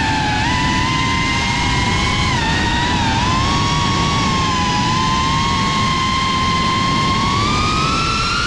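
A GEPRC Cinelog35 3.5-inch FPV cinewhoop in flight: its brushless motors and propellers give a high-pitched whine over a rush of wind. The pitch wavers slightly with throttle, holds fairly steady, then rises toward the end.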